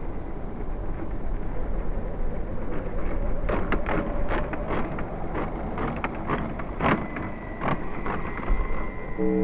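1/8-scale brushless electric RC racing motorcycles running on the track, under wind rumble on the microphone. A run of sharp clicks and knocks comes in the middle, and a steady high whine starts about seven seconds in.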